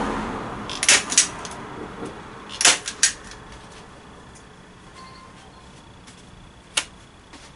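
Staple gun firing staples through raw canvas into wooden stretcher bars: four sharp snaps in two pairs about two seconds apart. A single knock follows near the end.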